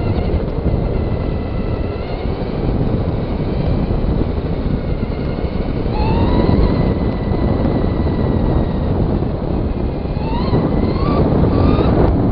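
Traxxas Stampede 2WD RC truck's electric motor and drivetrain whining, rising in pitch with each burst of throttle: once about halfway and three quick times near the end. Under it is a steady rumble of tyres on the ground and wind on the microphone.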